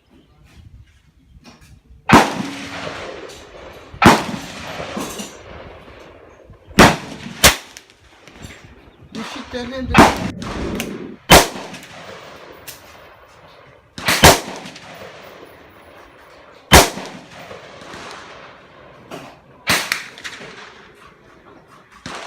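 Big-bore air rifle being fired at the range, about nine sharp shots a few seconds apart, two of them close together around seven seconds in, each followed by a long echoing tail.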